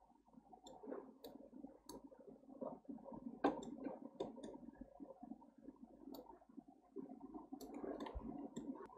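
Faint, scattered clicks of a computer mouse and keyboard over low background noise, with one sharper click about three and a half seconds in.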